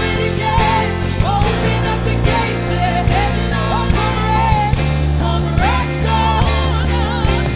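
Live worship band music with a steady beat, bass and a wavering lead melody line.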